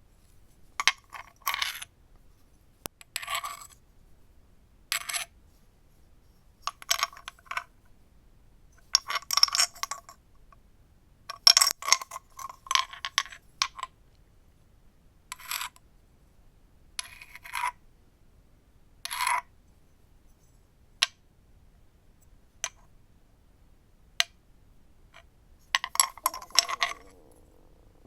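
A stone scraping and clicking against slate in about a dozen short, irregular strokes. A few single sharp taps come about two-thirds of the way through, then a last cluster of scrapes near the end.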